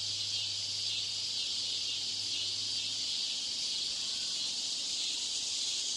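Steady high-pitched hiss with a low hum underneath, unchanging throughout. This is the noise added to a 'noise version' listening-test recording to imitate a poor test-room broadcast system.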